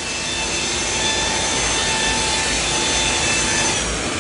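Electric polisher running with a foam pad on a painted panel: a steady motor whine over the hiss of the pad rubbing the paint. One of the whine's tones fades out near the end.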